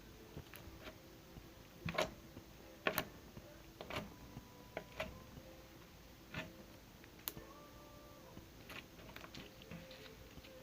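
Glitter putty slime being kneaded and squeezed by hand, giving off a dozen or so irregular, sharp little clicks and pops, the loudest about two and three seconds in.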